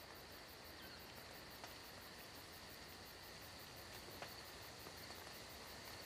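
Faint night ambience of crickets chirping steadily in a fast, even pulse, with a couple of soft ticks.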